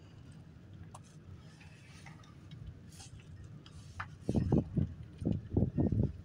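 Low rumble of a car rolling slowly, with scattered faint ticks. From about four seconds in, a quick run of loud, low thumps.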